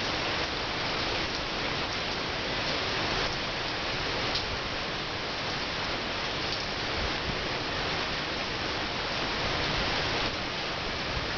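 Steady rain pouring onto wet paving, puddles and leaves: an even hiss with scattered louder drops and splashes.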